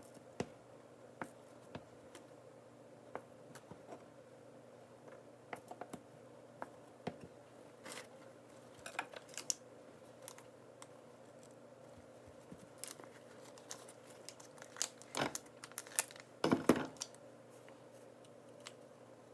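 Kitchen knife slicing a block of tofu and tapping on a cutting board: scattered light clicks and knocks, with louder rustling and knocks about three-quarters of the way through.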